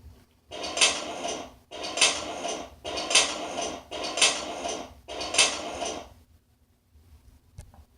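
Animated-cartoon sound effect: five evenly spaced clattering noises about a second apart, each a sharp hit followed by about a second of rattling.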